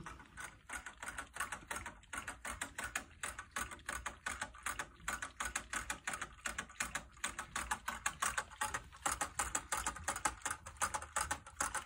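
Small dog licking the metal roller-ball nozzle of a water bottle to drink: a rapid, even run of clicks and taps, about five a second, that stops abruptly near the end.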